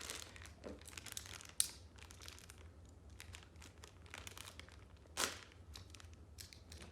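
Blind-box toy packaging being opened by hand: irregular crinkling and tearing, with a sharp snap about a second and a half in and a louder one about five seconds in.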